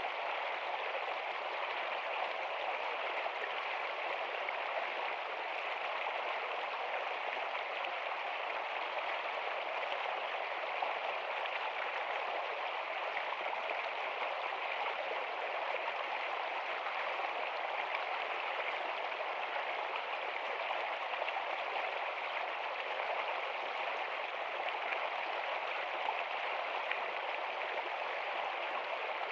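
Steady water noise, an even rushing hiss that does not change.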